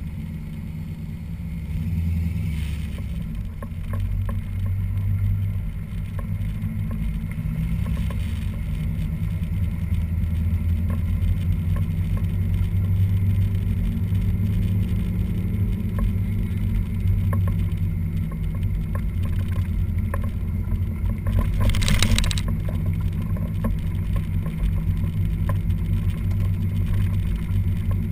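Corvette's LT4 small-block V8 running at low revs as the car rolls slowly, a steady low rumble that grows slightly louder. About 22 seconds in there is a brief rush of noise.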